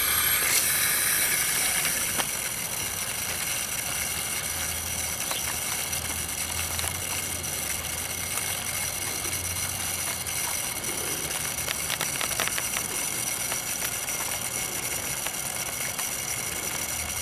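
Water hissing steadily through an opened garden-hose valve and a Chapin 16 oz liquid fertilizer injector as it feeds a drip line. The hiss is strongest just after the valve opens and settles slightly about two seconds in.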